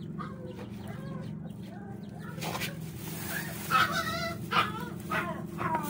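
Chickens clucking in short bending calls over a steady low hum, with a few crackles from a plastic bag being handled.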